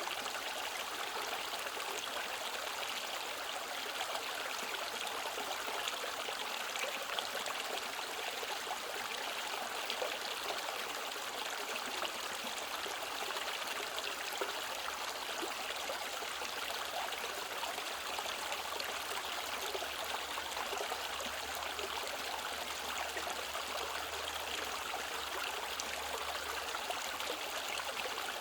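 Mountain stream in a rocky valley flowing and splashing steadily, a continuous rush of water with fine trickling detail.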